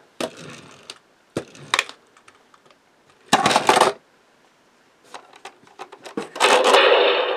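Plastic toy clicks and rattles as a toy hot rod is set onto a toy car-hauler's plastic flatbed, with a brief rasp a little after three seconds. From about six seconds in, as the loading ramp is raised, the Hess truck's built-in electronic ramp sound effect plays a loud rushing noise.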